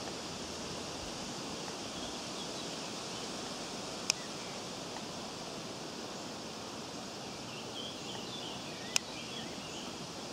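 Steady outdoor background hiss with faint, high chirping bird calls now and then, and two sharp clicks, about four and nine seconds in.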